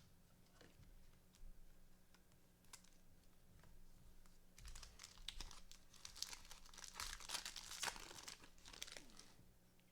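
Faint crinkling and tearing of a trading-card pack wrapper being opened, with scattered small clicks, busiest in the second half.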